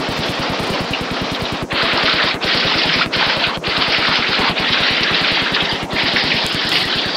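Torrential tropical-storm rain and wind, a loud, dense hiss that swells about a second and a half in and dips briefly a few times, over a rapid, even flutter.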